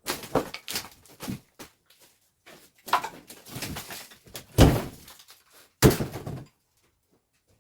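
Irregular knocks and thuds, the two heaviest thuds coming about four and a half and six seconds in, after which the sound stops.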